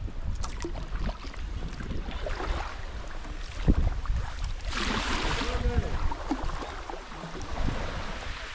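Sea kayak paddling on calm sea water: small paddle splashes and water lapping at the hull, over a low rumble of wind on the microphone. A louder wash of water about five seconds in.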